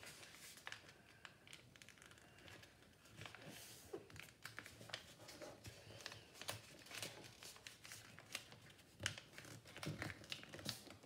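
A sheet of paper faintly rustling and crinkling as it is folded by hand into a paper plane, with scattered soft crackles as the folds are pressed and creased.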